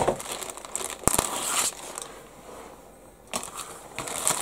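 A thin clear plastic bag of model-kit sprues crinkling and rustling in irregular bursts as it is slit open and spread flat by hand, with a couple of sharp clicks.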